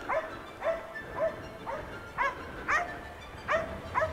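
Grey elkhound-type moose dog barking steadily, about two barks a second, as it holds a moose at bay.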